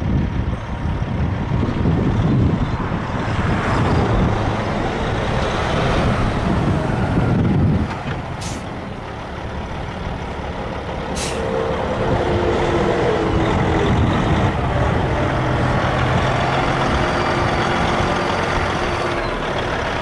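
A Peterbilt 379 semi truck's Caterpillar C15 inline-six turbo diesel idling with a steady low rumble. Two brief sharp sounds come about eight and eleven seconds in.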